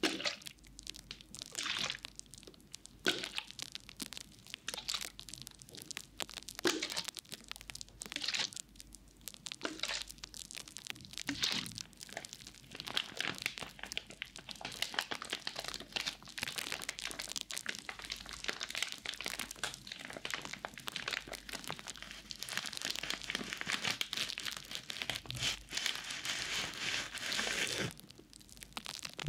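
Crinkly plastic packaging of a pack of cotton pads being handled and squeezed close to a binaural microphone, with irregular crackles that grow denser and busier after the first several seconds.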